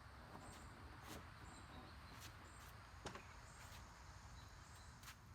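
Faint outdoor ambience: short, high chirps repeat about once a second, probably a bird or insect, with a few faint sharp clicks over a low background rumble.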